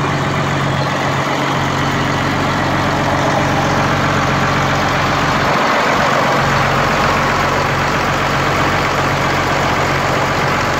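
International Harvester 4386 articulated tractor's diesel engine idling steadily, purring along smoothly, a sign that it runs well.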